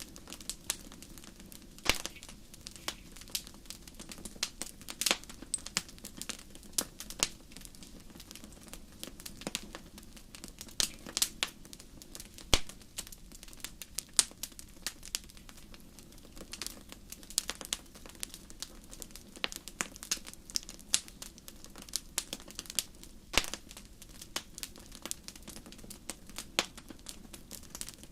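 Wood fire burning in a fireplace, crackling with irregular sharp pops over a faint steady low rumble.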